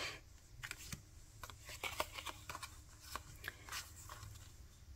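Oracle cards being slid off the front of a hand-held deck one after another: faint, irregular card clicks and rustles.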